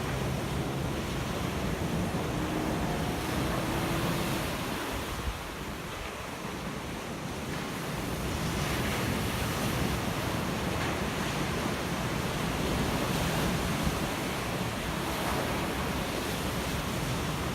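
Ocean surf: a steady wash of breaking waves that eases off about five seconds in and builds back up by about eight seconds.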